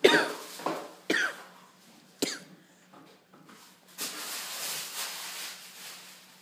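Three coughs about a second apart, sharp and loud, followed about four seconds in by two seconds of breathy rushing noise.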